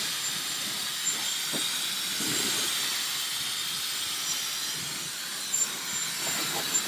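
Dyson Supersonic hair dryer running steadily: a rushing hiss of air with a faint, thin high whistle.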